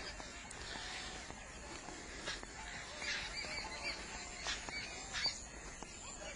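Birds calling with short, repeated chirps, clustered about three seconds in and again later, over a steady outdoor hum. A few sharp clicks or knocks cut in, the loudest just past five seconds.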